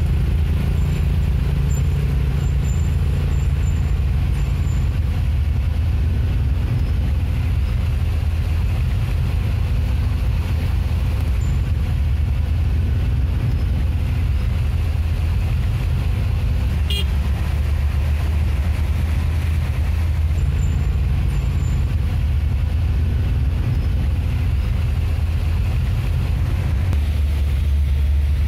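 Vehicle engine heard from inside the cab, running with a steady low drone at crawling speed. A single short click a little past the middle.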